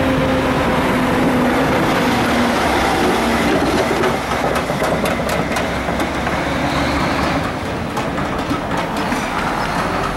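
Street traffic: a motor vehicle's engine running close by, a steady low hum that sinks slightly in pitch, with scattered sharp clicks in the second half.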